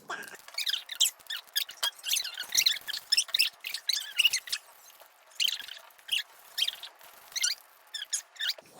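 Slime being squeezed and worked by hand: a quick, irregular run of wet clicks, pops and squelches.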